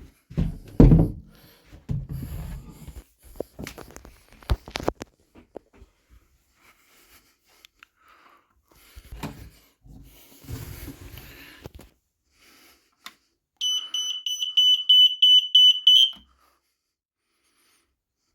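Bumps, knocks and rustling, then about three-quarters of the way in a smoke alarm sounds on test: a loud, high-pitched, rapidly pulsing beep for about two and a half seconds that cuts off suddenly.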